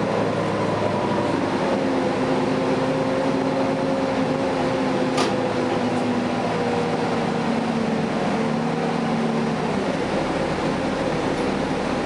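Cummins ISL9 diesel engine and drivetrain of a 2011 Gillig Advantage transit bus, heard from inside the passenger cabin while the bus is under way: a steady drone with a few held tones that dip slightly near the end. A single sharp click about five seconds in.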